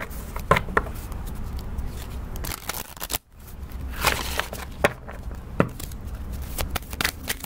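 Oracle deck being shuffled and handled: a scatter of short flicks, slaps and rustles of card stock, with a brief pause about three seconds in.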